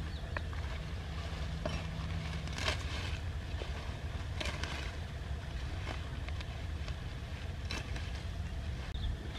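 A large knife cuts through water spinach stems and leaves: a few separate swishing, rustling strokes, the clearest about three seconds in, halfway through and near the end. Under them runs a steady low rumble.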